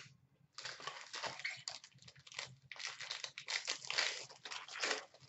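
Foil wrapper of an Upper Deck Premier hockey card pack crinkling and crackling in the hands as it is opened, a dense run of small crackles lasting several seconds.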